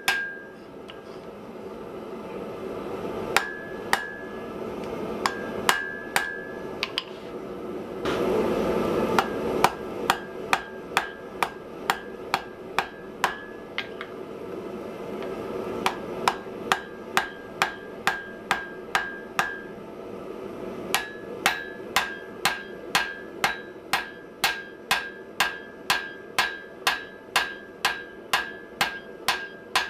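Hand hammer blows forging hot iron on an anvil, each strike ringing. The blows are spaced out at first, then settle into a fast steady rhythm of about two to three a second for the second half. A steady rushing noise runs underneath and swells briefly about eight seconds in.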